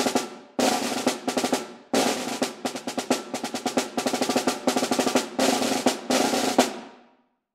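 Solo snare drum played with wooden sticks: fast rolls and runs of strokes, broken by sharp accents and two short breaks about half a second and two seconds in. It ends on a final strong stroke about six and a half seconds in that rings out and dies away, closing the etude.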